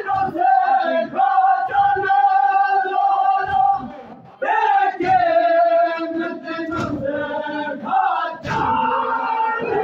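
A group of men chanting a noha, a Shia mourning lament, in long held notes through a PA, with dull low thumps of chest-beating (matam). The voices break off briefly about four seconds in, then come back in strongly.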